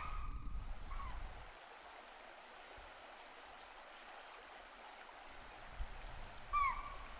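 Shallow river water running over stones, a steady rush. A bird gives short downward-sliding chirps about a second in and again near the end, over a faint high steady buzz in the second half.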